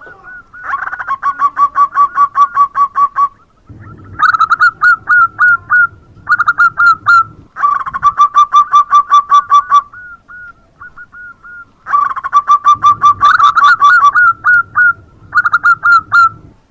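Zebra dove (perkutut) singing: four bouts of rapid, staccato coos at about seven notes a second, with softer coos in the pauses between bouts.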